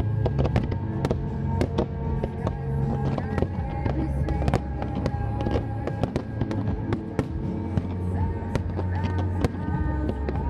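Fireworks bursting with sharp bangs and crackles, several a second, over loud music with a heavy bass line.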